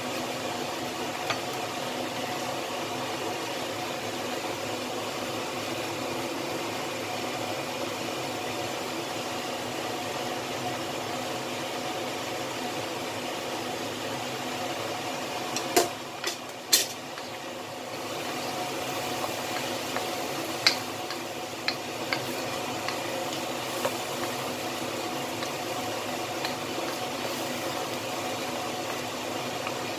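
Chicken wings, potatoes and carrots bubbling in sauce in a wok, a steady simmering hiss. A few sharp knocks of a wooden spatula against the wok come a little past halfway, the two loudest close together, then lighter taps.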